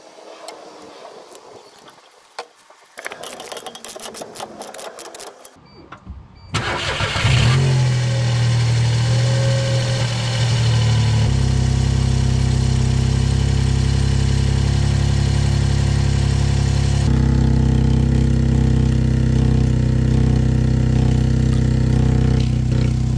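A few faint clicks and knocks, then about six and a half seconds in the Mitsubishi Colt's 1.1-litre three-cylinder engine starts, picks up briefly and settles into a steady idle, heard loudly from under the car beside the exhaust.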